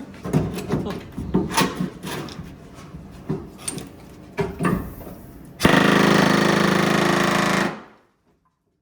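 Scattered knocks and clatter on car body sheet metal, then about two seconds in a loud, rapid-fire air hammer running against the panel, which cuts off suddenly near the end.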